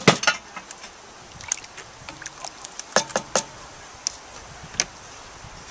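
A wooden spoon knocking against a cast iron Dutch oven. A cluster of sharp knocks comes right at the start, then scattered clicks and taps, with a quick run of three or four about three seconds in.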